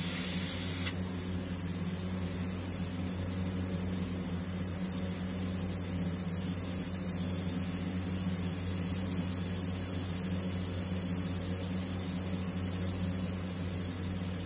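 Gravity-feed airbrush spraying paint, a steady hiss of compressed air, over a steady low hum. A single short click about a second in.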